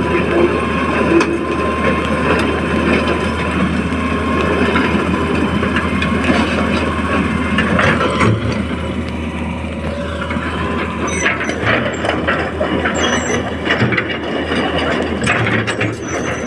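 Hitachi excavator running at work: a steady engine hum with a high whine over it, and scattered clanks and knocks in the second half.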